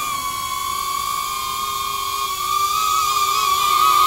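Cinewhoop FPV drone's motors and ducted propellers whining steadily in flight, the pitch wavering a little and growing louder toward the end as it comes in close.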